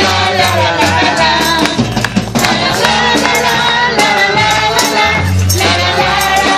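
Christian praise music: group singing over a bass line, with tambourine.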